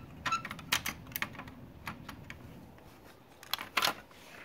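Scattered light plastic clicks and taps as the Chevy Volt instrument cluster's circuit board is handled and fitted back onto its plastic housing, with a louder couple of clicks near the end.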